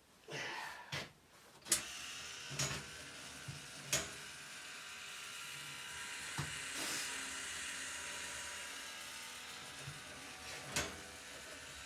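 Sawmill band-blade sharpener's small electric motor running steadily, with a handful of sharp metallic clicks and knocks as the blade is handled and indexed.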